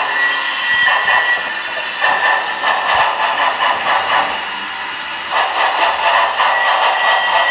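HO scale model train running along the layout track, a steady whirring rattle of motor and wheels with a thin steady whine and a level that rises and falls.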